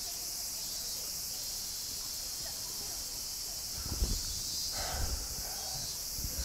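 A person lets out a deep sigh of relief, breath puffing onto the microphone about four seconds in and again briefly near the end. Under it runs a steady high-pitched hiss of insects.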